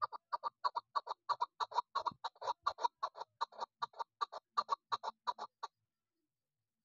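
Female chukar partridge calling: a fast, even run of short call notes, about five a second, that stops suddenly about five and a half seconds in.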